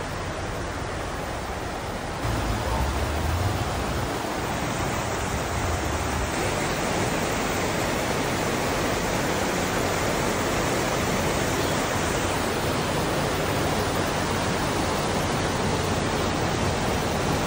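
Muddy flash floodwater rushing down a wadi in a steady wash of noise, which steps up in loudness about two seconds in.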